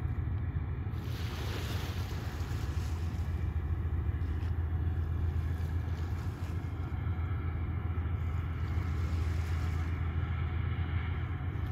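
Small waves lapping on a sandy shore over a steady low rumble, with one wash a little louder about a second in.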